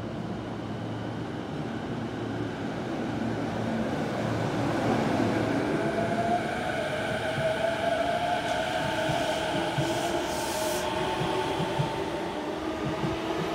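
E233-1000 series electric train accelerating away from a station stop. The traction motors and inverter give a whine that rises slowly in pitch as the train gets louder. There is a brief hiss about ten seconds in, and near the end the wheels begin clacking over the rail joints in a quickening rhythm.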